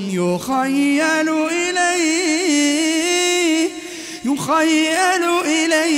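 A man reciting the Quran in melodic tajweed style. He holds one long, ornamented note for about three seconds, breaks off briefly about four seconds in, then starts the next phrase.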